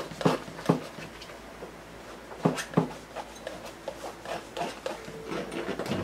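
Scattered short taps and knocks of painting tools being handled at the palette and easel. The loudest come in two pairs, each a third of a second or so apart: one just after the start and one about two and a half seconds in.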